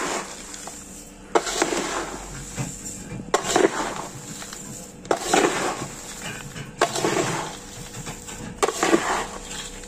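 Crunchy fried snack mix (sev, boondi, chivda and peanuts) being tossed and scooped in a large metal bowl: a rustling, clattering stroke about every one and a half to two seconds, five times in all.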